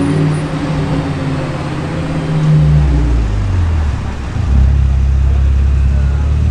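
Lamborghini Huracán STO's naturally aspirated V10 running at low revs. Its steady note drops to a deeper rumble about three seconds in and gets louder near the end.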